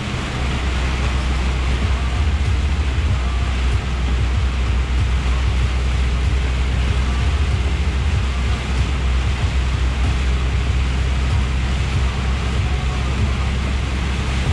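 Inside the cab of a Scania R420 truck at road speed: the diesel engine's steady low drone under an even hiss of rain and tyres on the wet road.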